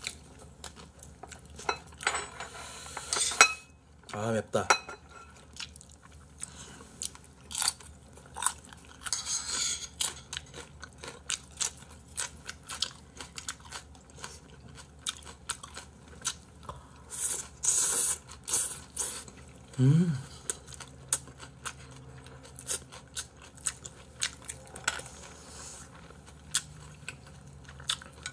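Close-miked eating: chewing and crunchy bites, including green chili peppers, with frequent clicks of chopsticks and spoons against bowls and plastic trays. A short low hum of enjoyment comes twice, a few seconds in and again past the middle.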